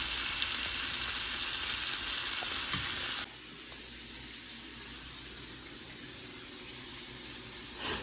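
Jumbo shrimp frying in butter in a pan, a steady sizzle that drops abruptly to a quieter sizzle about three seconds in.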